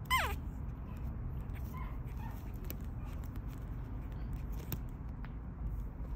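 A Chihuahua–Pekingese mix puppy gives one short, high whimper that falls sharply in pitch right at the start, then a couple of faint whines about two seconds in.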